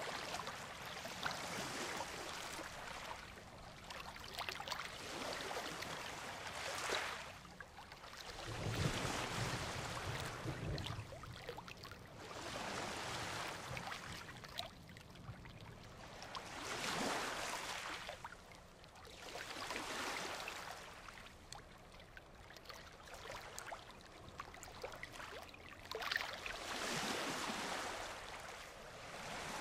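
Ocean surf: waves breaking and washing up the shore, swelling and ebbing every few seconds, with a deeper low rumble about nine seconds in.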